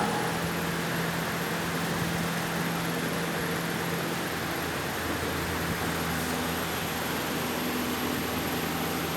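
Steady mechanical hum: a constant low drone over an even hiss, unchanging throughout.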